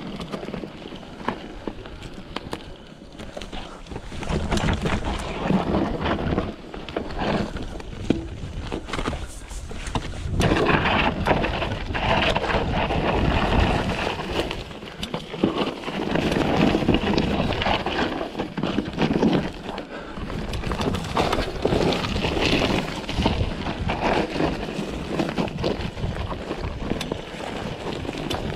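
Mountain bike descending a dirt trail: knobby tyres rolling over dirt and dry leaves, the bike rattling and knocking over bumps, with wind rushing on the microphone. The noise surges louder in stretches as speed picks up.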